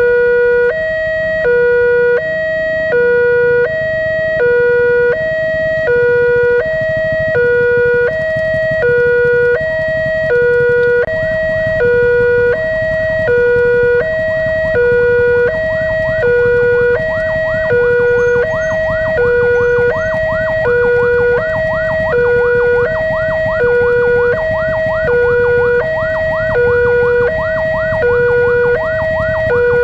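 Railway level-crossing warning alarm sounding, a two-tone electronic chime that alternates steadily between a lower and a higher note, each held about half a second. A low rumble runs underneath, and from about eleven seconds in a faint, rapid chirping joins it.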